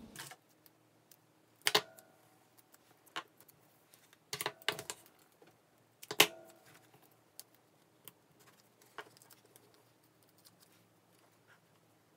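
Hands peeling small foam adhesive pads (mini dimensionals) from their sheet and fitting them to a die-cut paper sheep: a few sharp clicks and taps, loudest about two, four and a half and six seconds in, with fainter ticks between.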